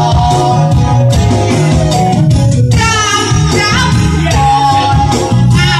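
A woman singing mor lam, the Isan folk song style, into a microphone over loud amplified backing music with a steady beat, her voice sliding and ornamenting the melody.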